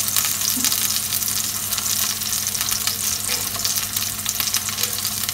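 Sliced mushrooms sizzling in hot oil in a frying pan: a steady crackle of many small pops, over a low steady hum.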